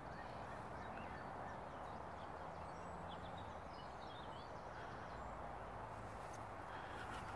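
Faint birds chirping and twittering in short scattered calls over a steady outdoor background hiss.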